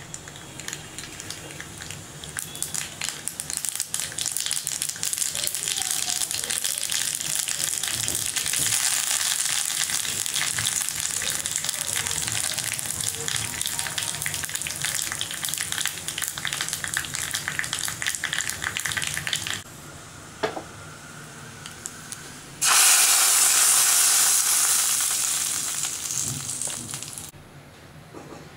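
Rasam tempering frying in hot oil in a pot: dried red chillies, curry leaves and spices sizzling with dense crackling and spitting, which breaks off after about 20 seconds. A couple of seconds later, a sudden loud hiss as the rasam liquid and the hot tempering meet, dying away over about four seconds.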